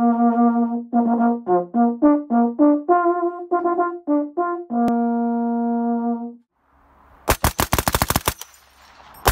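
A brass instrument plays a short tune of clipped notes that ends on a long held note about six seconds in. After a brief pause, a Vickers machine gun fires a rapid burst lasting about a second, and a second burst starts at the very end.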